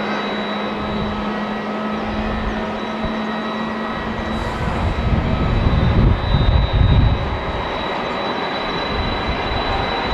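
Boeing 767-300ER's jet engines running: a steady roar with a high whine. A low, gusty rumble swells from about five to seven seconds in.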